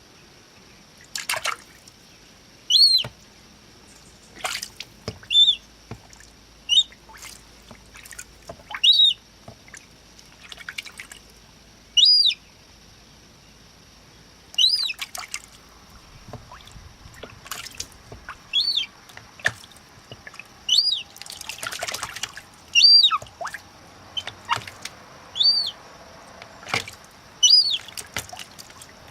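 Gull chick peeping repeatedly, short high arched peeps about every two seconds, while water splashes and drips around it as it moves about in the water.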